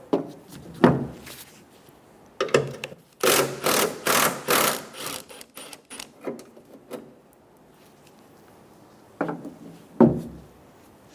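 Clicks, scrapes and knocks of hand tools and metal parts as the tailgate latch bolt and cable are worked free. About three seconds in comes a dense run of quick clicks lasting about two seconds, and single knocks follow near the end.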